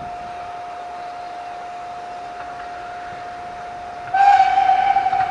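Distant steam locomotive whistle holding one steady note. About four seconds in it sounds suddenly much louder and fuller on the same pitch.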